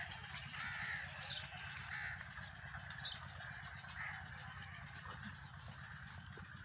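A few short animal calls, about four in the first four seconds, over a steady high insect trill.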